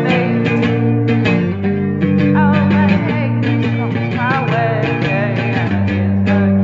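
Psychedelic folk-rock music with guitars over steady held bass notes, and a wavering melody line above them.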